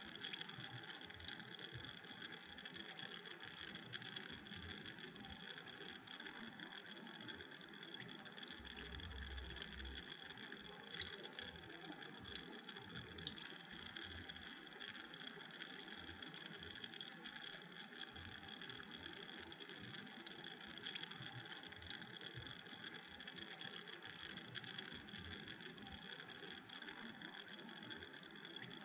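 Carbonated drink fizzing: a steady crackle of tiny bubbles bursting, made up of many fine pops.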